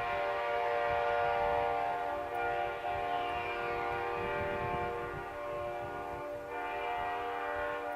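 Multi-chime locomotive air horn sounding one long, steady chord of several notes.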